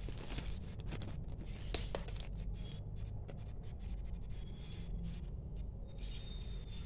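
Close handling noises of scrapbooking: a small plastic zip bag and paper being handled and pressed on a journal page, giving scratchy rustles and light clicks, with a sharper click about two seconds in. A steady low hum runs underneath.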